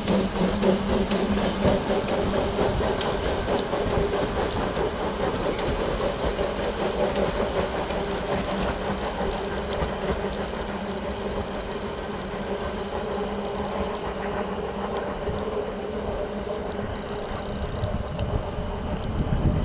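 Small British-built Winson steam locomotive hauling two carriages past: a steady hiss of steam mixed with the clatter of wheels on the rails, easing off as the train moves away.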